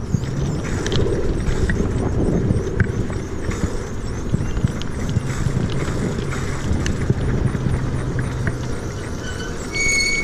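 Wind rumbling on the microphone, with scattered clicks, while the ONYX RCR electric motorbike is being ridden. Near the end a steady high whine sets in as the bike comes back and slows under regenerative braking.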